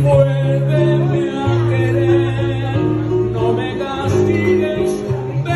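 Live romantic ballad: a man singing into a microphone while playing an amplified acoustic guitar, over long held low bass notes.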